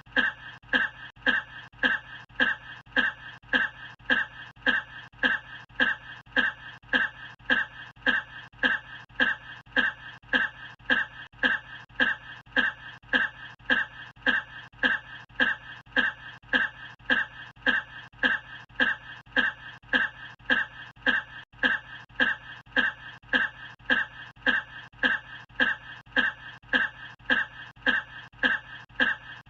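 A person's short cough, looped and repeated over and over at an even pace, each repeat the same.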